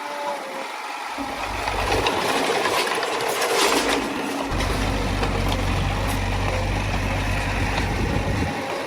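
Heavy earthmoving machinery running, its diesel engine working steadily. A low engine note comes in about a second in and drops away shortly before the end, with a louder noisy stretch around the middle.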